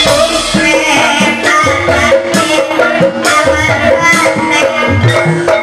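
Live Banyumas calung gamelan music: bamboo xylophones playing a rhythmic pattern over a drum beat.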